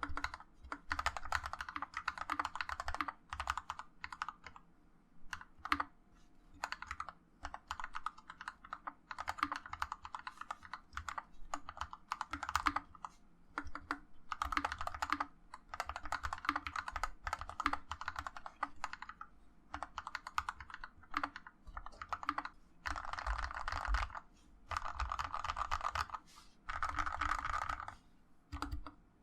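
Typing sound test on a custom GK61X 60% hot-swap mechanical keyboard with Gateron Yellow linear switches lubed with Krytox 205g0 and DSA PBT blank keycaps. Fast runs of keystrokes come in bursts of one to three seconds, with short pauses between them.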